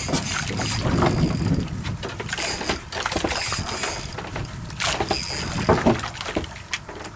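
Water sloshing and slapping against a small fishing boat, with wind on the microphone and scattered knocks.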